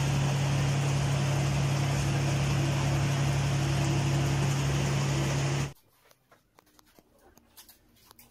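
40-litre planetary mixer running: a steady low electric-motor hum under a loud mechanical whir. It cuts off suddenly about five and a half seconds in, leaving only faint clicks and handling noise.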